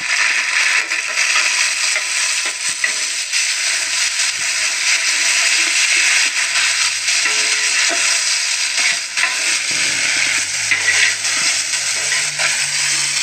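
Chopped tomatoes and browned onions sizzling steadily in hot oil in a large metal pot, stirred with a metal spatula that gives small scraping clicks.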